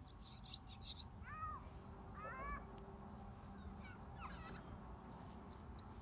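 Recorded animal calls played back through a tablet's small speaker from a sound board: a quick run of high chirps, then several arching, rising-and-falling calls, and a few very high short peeps near the end.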